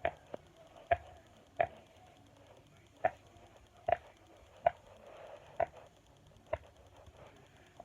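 Silicone bubbles of a large pop-it fidget toy being pressed one at a time, each giving a short sharp pop. There are about ten pops, spaced roughly a second apart, not quite evenly.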